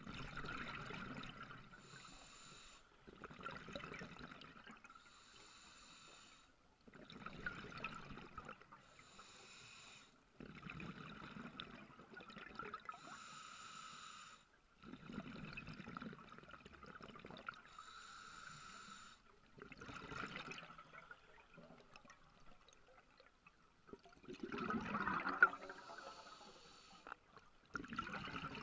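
Scuba diver breathing through a regulator underwater: a short hiss on each inhalation, then bubbling as the exhaled air escapes. The cycle repeats about every four seconds, with a longer, louder exhalation near the end.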